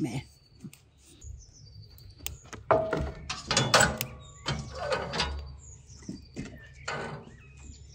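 Metal clanking and scraping from a steel wood-burning stove's oven door being opened and handled, loudest from about three to five seconds in, with another knock near the end. Small birds chirp throughout.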